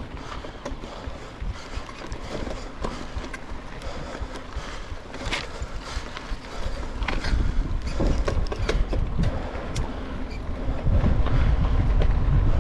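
Mountain bike ridden over a dirt and gravel forest trail, heard from a handlebar-mounted camera: tyre crunch on the ground with scattered clicks and rattles from the bike. Wind rumbles on the microphone and grows louder near the end.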